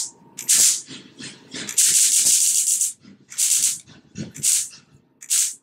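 High-voltage sparks crackling across the sword's two metal blades, fed by a battery-powered high-voltage boost transformer and switched on in short bursts: about six bursts, the longest about a second.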